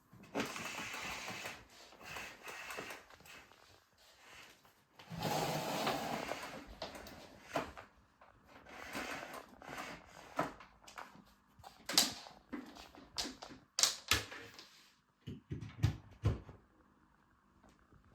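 Handling noise: several bursts of rustling, then a run of sharp clicks and knocks of small hard objects in the second half.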